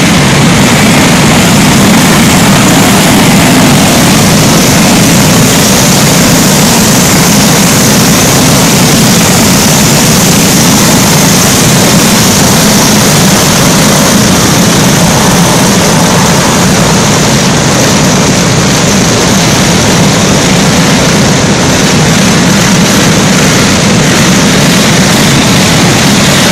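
Engines of a pack of racing go-karts running together, a loud, steady drone heard inside a steel-walled indoor arena.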